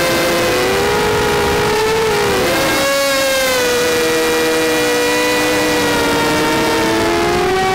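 Vortex quadcopter's motors and propellers whining, heard up close from the onboard camera, several tones sliding up and down as the throttle changes, with the pitches swooping and crossing about two to three seconds in.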